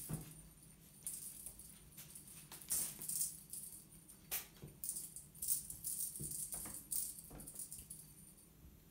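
Kittens scrabbling and pouncing on a hard plank floor after a wand toy: irregular scratchy, rattling bursts of claws and paws, with a few sharp taps.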